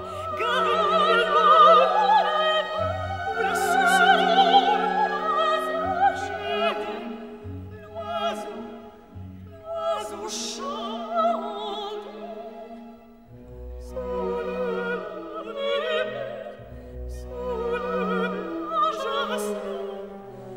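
Background music: operatic singing with strong vibrato over an orchestral accompaniment, swelling and fading across long held notes.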